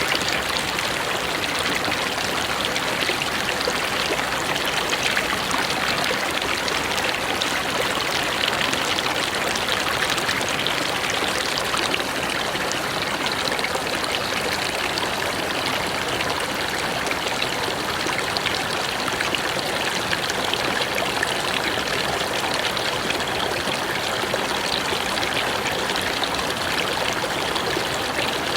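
Forest river flowing over rocks: a steady, even rush of running water.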